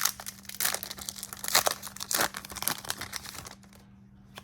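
Crinkling and tearing of a Yu-Gi-Oh booster pack's wrapper as it is ripped open by hand, a rapid run of crackles that stops about three and a half seconds in.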